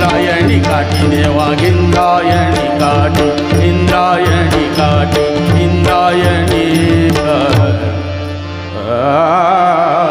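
Live abhang singing: a male voice with tabla and a tanpura drone, the percussion keeping a steady beat and then stopping about seven and a half seconds in. A final held note with a wide vibrato follows over the drone as the song closes.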